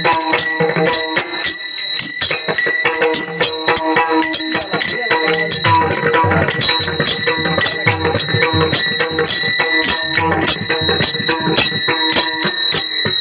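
Kirtan music: small brass hand cymbals (taal) clashing in a fast, steady rhythm, ringing over mridang drum strokes.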